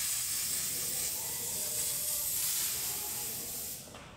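Aerosol hairspray can spraying in one long steady hiss, stopping just before the end.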